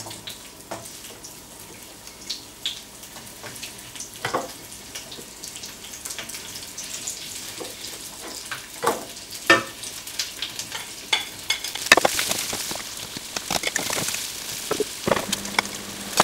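Chopped fennel sizzling in a hot wok as it is sautéed, the sizzle growing louder near the end. Scattered knocks and clatters come from pieces being dropped into the pan and stirred.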